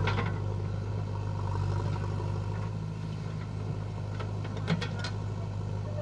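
JCB backhoe loader's diesel engine running steadily as it works, with a clatter right at the start as the bucket of soil is dumped into the trolley and two sharp knocks about five seconds in as the arm swings back to dig.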